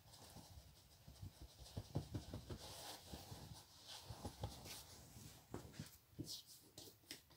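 Faint rubbing and patting of a towel drying a freshly shaved face and neck, with scattered soft knocks and brief swishes.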